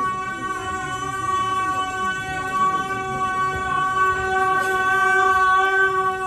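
A long musical note held at one steady pitch, reedy and rich in overtones, slightly louder in the second half.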